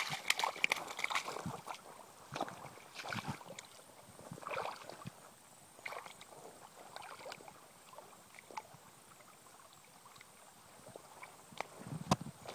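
Shallow stream water splashing and sloshing in irregular bursts, busiest in the first second or two, then scattered, almost dying away for a few seconds before picking up again near the end.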